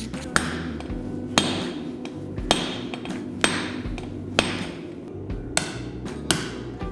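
Hammer blows on metal, about one a second, each ringing briefly: a blacksmith striking steel on an anvil.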